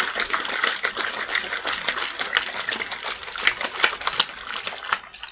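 Powdered strawberry lemonade drink mix being mixed into water: liquid sloshing under a dense, continuous run of rapid clicks and rattles.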